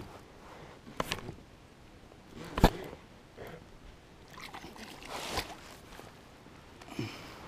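A hooked bass being landed by hand beside a fishing kayak: water splashing and sloshing, with a few sharp thumps, the loudest about two and a half seconds in.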